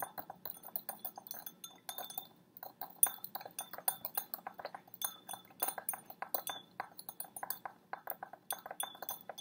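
A plastic knife stirring sugar into water in a glass beaker, clinking lightly and irregularly against the glass several times a second.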